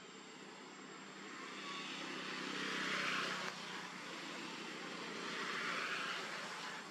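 Two motor vehicles passing in turn, each a rush of engine and tyre noise that swells and fades, the first peaking about three seconds in and cutting down suddenly just after, the second near the end.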